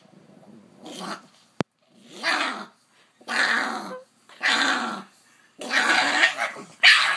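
Pug growling while lying on its back and pawing at the hands holding it: a series of about six rough growls, each under a second long, growing longer toward the end. A single sharp click sounds about a second and a half in.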